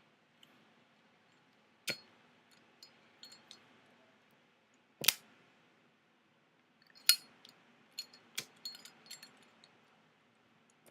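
Zippo lighter clacking open and snapping shut as it is flipped through a trick, with the flint wheel struck and lighter metallic ticks of the lighter moving in the fingers. Three loud clacks come a couple of seconds apart, about two, five and seven seconds in.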